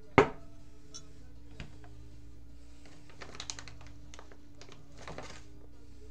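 A sharp knock, then scattered keystrokes and clicks on a computer keyboard in short irregular runs, over a steady low hum.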